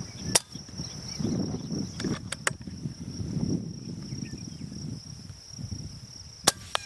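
Two sharp cracks from a .22 Air Arms Galahad pre-charged air rifle firing, one just after the start and one near the end, the second followed a moment later by a fainter smack. Under the shots, a steady high insect buzz and low wind rumble on the microphone.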